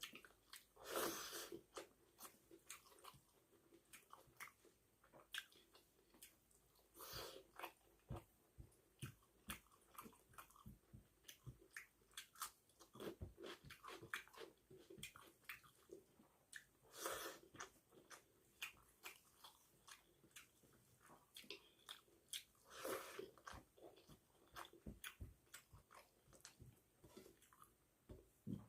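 Close-miked chewing and biting of rice and fish curry, many small wet mouth clicks with a few louder, longer bites spread several seconds apart.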